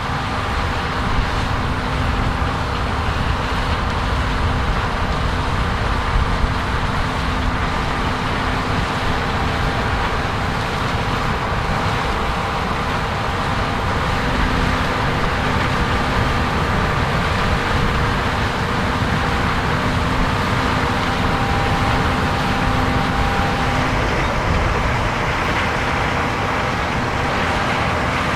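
Large diesel harvest machinery running steadily under load in a corn field, a continuous heavy mechanical drone with a faint steady whine above it.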